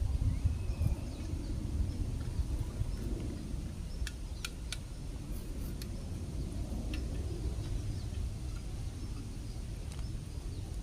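Outdoor ambience: a low, uneven rumble with faint high chirps scattered through and a few sharp clicks about four to five seconds in.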